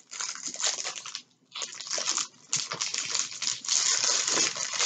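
Clear plastic bags of diamond painting drills crinkling as they are handled, in irregular bursts with a short pause a little over a second in.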